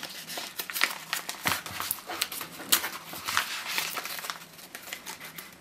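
Yellow padded paper mailer being pulled open by hand, crinkling and rustling in a quick run of short crackles.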